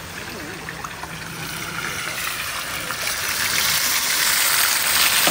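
Rushing water, a steady hiss that swells and grows clearly louder about two to three seconds in.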